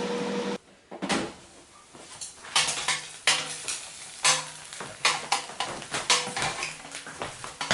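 Kitchen clatter: irregular clicks and knocks of tongs, plate and cutlery handling hot cooked food, over a faint sizzle. A steady appliance hum, the air fryer running, cuts off less than a second in.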